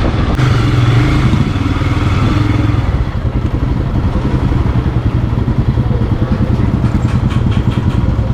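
Motorcycle engine running at low speed in traffic; from about three seconds in it drops a little in level and settles into an even, pulsing beat.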